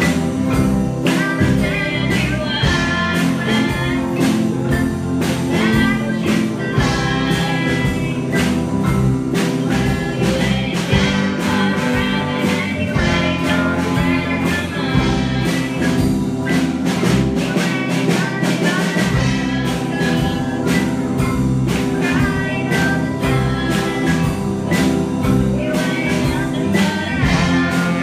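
Live band performing a blues-style song: several singers singing into microphones over keyboard and electric guitar, with a steady beat.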